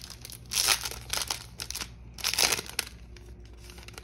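A trading-card booster pack's foil wrapper being torn open and crinkled by hand, in several short crinkly bursts. The loudest bursts come about half a second in and again around two and a half seconds.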